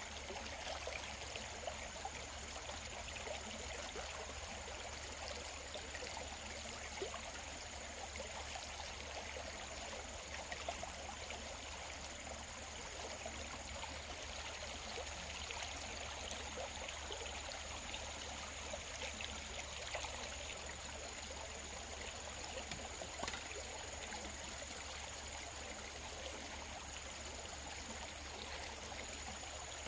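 Water running and trickling steadily, like a small stream, with many small irregular splashes.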